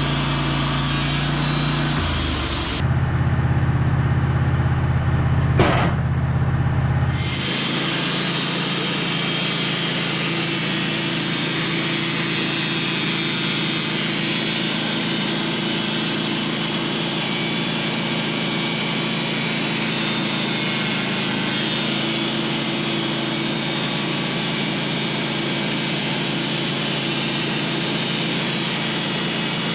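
Portable band sawmill running steadily. It sounds heavier and lower for a few seconds near the start, with one sharp click about six seconds in.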